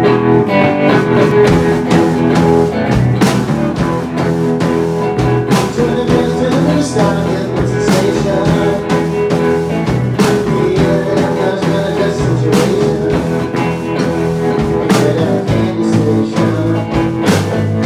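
A live roots-rock trio playing an instrumental passage of a song: electric guitar, electric bass and drum kit together, with steady drum hits.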